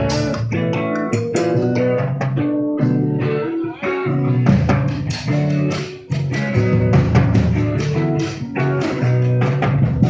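A live band playing amplified music in a sound check: electric bass and guitar over timbales, congas and cymbals, with the drums struck throughout.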